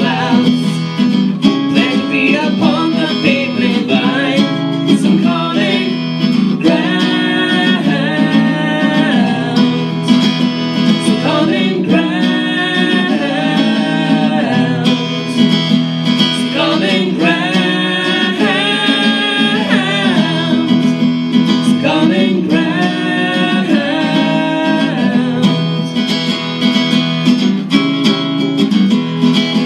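A woman singing a song with an acoustic guitar accompanying her.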